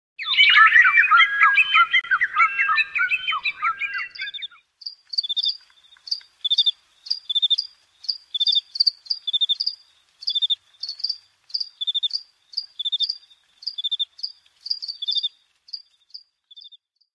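Chirping animal calls: a dense overlapping chorus of chirps for about four seconds, then a repeated two-pitched chirp about twice a second that stops near the end.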